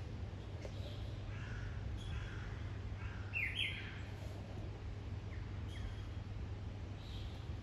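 Bali mynas calling: a string of short, scratchy calls spread through, the loudest a quick pair about three and a half seconds in, over a steady low hum.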